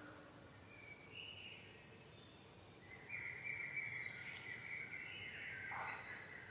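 Young macaque screaming during a scuffle with another: a long, high-pitched scream that starts about three seconds in and briefly drops lower near the end.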